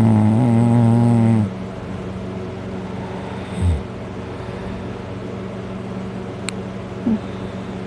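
A man passed out drunk snoring very loud: one long, pitched snore that ends about a second and a half in, then a pause with a steady low hum and a brief low snort near the middle.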